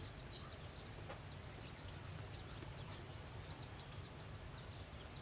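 Small birds chirping: many short, high chirps, several a second, over a steady low rumble.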